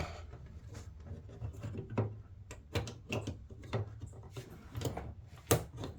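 Irregular light knocks and clicks of things being handled, about ten in six seconds, over a low steady hum.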